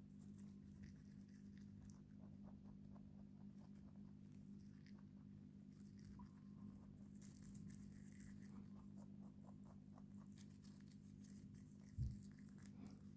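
Rabbit faintly crunching kale, a quick irregular run of small chewing clicks over a steady low hum. One dull thump near the end.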